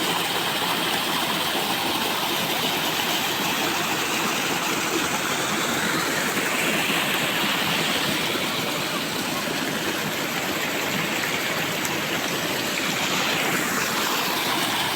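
Rushing rainwater runoff: a steady, loud rush of flowing water after heavy rain.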